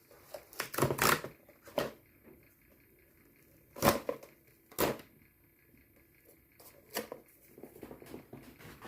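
Cardboard phone-case packaging being handled: a series of sharp taps and knocks, a cluster of them about a second in and single ones around four and five seconds in, then softer scattered rustling near the end.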